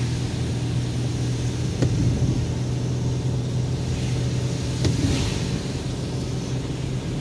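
Steady low drone of a car driving on a wet road, heard from inside the cabin. The windshield wipers pass twice, about three seconds apart, each pass a sharp click with a brief swish.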